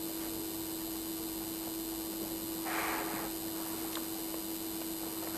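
Steady electrical mains hum with background hiss. A brief, soft burst of noise comes a little before the middle.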